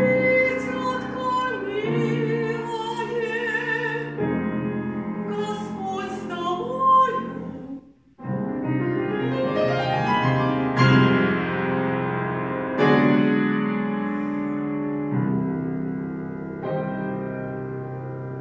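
Two women's voices sing the closing phrase of a Russian folk song in duet with vibrato, over grand piano accompaniment. After a short break about eight seconds in, the piano alone plays the closing chords, about five of them, each ringing and fading, softer toward the end.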